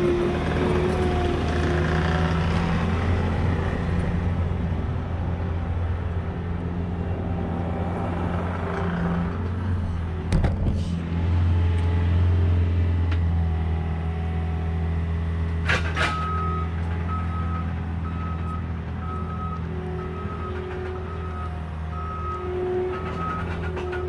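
An engine idling steadily with a low hum, broken by two sharp knocks. About two-thirds of the way in, a repeated high beep joins it, somewhat under two beeps a second.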